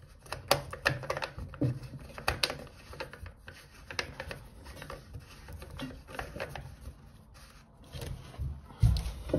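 White plastic drain pipe being worked by hand into a ceramic sink pedestal: scattered clicks, knocks and rubbing of plastic against ceramic, with a louder low thump near the end.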